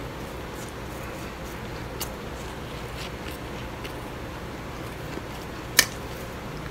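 Spoonfuls of blender-crushed ice being eaten: scattered faint crunches and clicks over a steady low hum, with one sharp, much louder click near the end.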